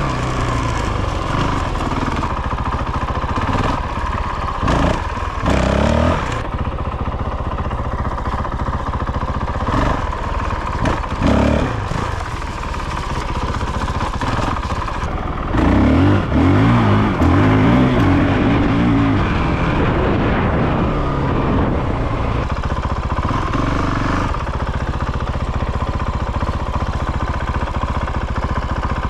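Honda CRF450RL's 450 cc single-cylinder four-stroke engine running on a newly fitted aftermarket ECU, revved up and let fall back several times, with the longest run of revs about halfway through.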